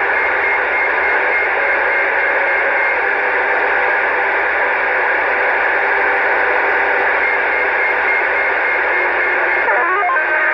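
Steady static hiss from a CB radio receiver's speaker, with faint steady tones in it; about a second before the end the hiss changes as another signal comes in.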